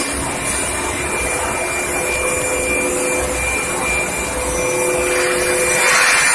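Induction furnace running: a steady noisy hum with a thin, constant high whine, and a louder hiss building up near the end.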